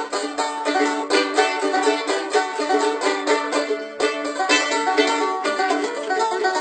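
Bluegrass tune played on banjo and mandolin, fast picked notes.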